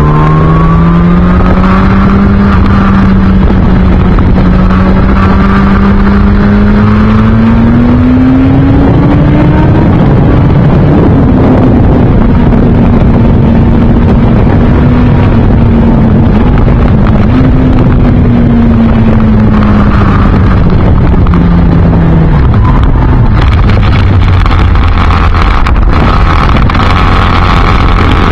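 Yamaha R1 RN19 inline-four running through an Akrapovic silencer with no catalytic converter, heard from the rider's seat under way. Revs climb to a peak about ten seconds in, hold, then drop off about twenty-two seconds in, under heavy wind rush on the microphone.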